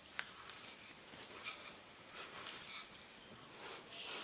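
Wooden rolling pin rolling over butter pastry on a stone countertop: faint soft rubbing with a few light ticks.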